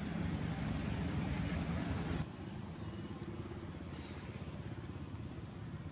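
Steady low rumble of motor-vehicle engine noise in the background, turning abruptly quieter about two seconds in.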